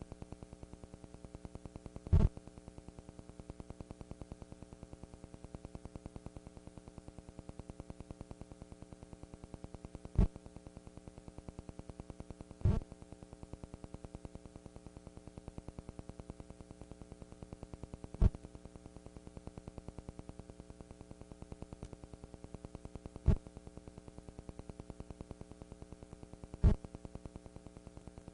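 Steady electrical buzz with a low hum, broken by six sharp, loud pops a few seconds apart.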